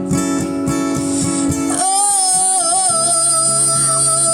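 Live acoustic guitar strumming chords. About two seconds in, a female voice comes in on one long held, wordless note over the guitar.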